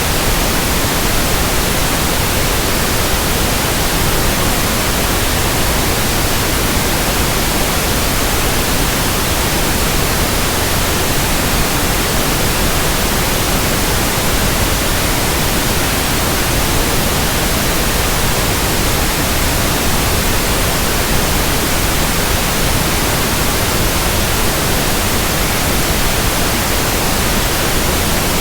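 Pink noise: a steady, even hiss of synthetic broadband noise, unchanging throughout, used for tinnitus sound matching and masking.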